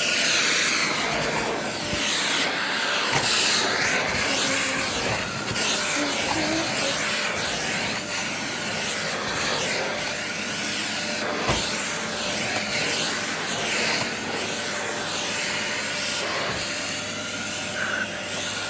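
Bush multi-cyclonic bagless cylinder vacuum cleaner running steadily while its floor head is pushed back and forth over the carpet, the hiss of the suction swelling and fading with each stroke. Two short knocks, about three seconds in and again near the middle.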